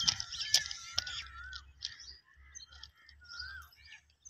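Birds chirping, with a few crunching footsteps on railway track gravel ballast in the first second.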